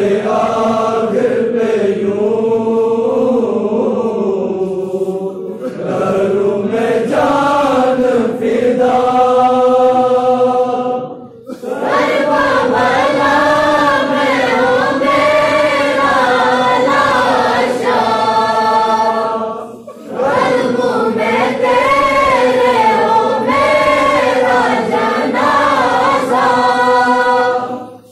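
A group of young male voices chanting a devotional tarana in unison, without instruments. The sung phrases break off briefly about 11 seconds in and again about 20 seconds in.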